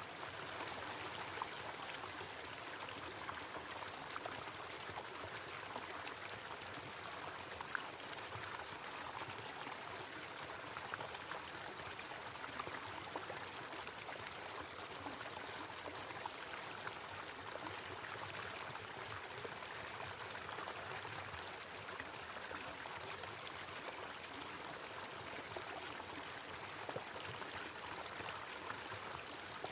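Small waterfall: water pouring and splashing in a steady, even rush, with small scattered drips and splashes.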